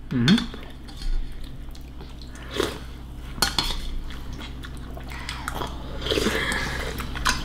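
Spoons and utensils clinking and scraping against ceramic bowls and plates during a meal: scattered light clicks, with some chewing.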